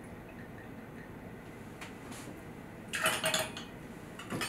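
Quiet, then about three seconds in a metal bar jigger clinks against a cocktail shaker with a brief ringing note as a measure of gin is tipped in. A smaller click follows near the end.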